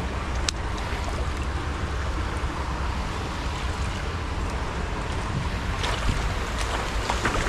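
Steady wind noise on the microphone over the flow of a shallow, stony river, with one sharp click about half a second in.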